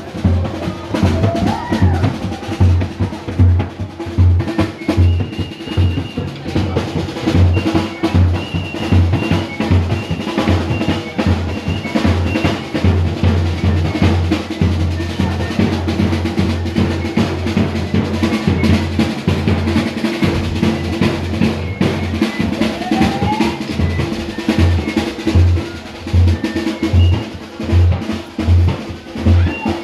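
Drum music with a steady, heavy bass-drum beat and snare-drum rolls.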